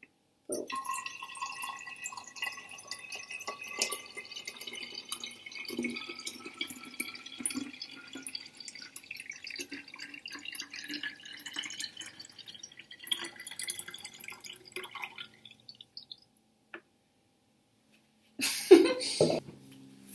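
Lemonade poured in a thin stream from a bowl into a tall glass bottle, trickling and gurgling, with a ringing tone that climbs steadily in pitch as the bottle fills. The pour stops about fifteen seconds in, and a brief loud noise comes near the end.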